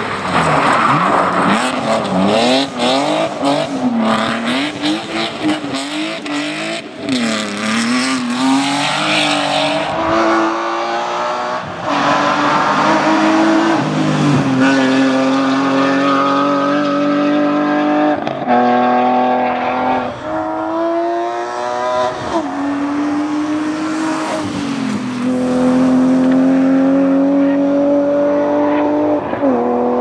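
BMW rally car engines running hard on a tarmac stage. For the first third, the revs swing rapidly up and down through a corner. After that, a car accelerates away through the gears, its note climbing steadily and dropping sharply at each upshift.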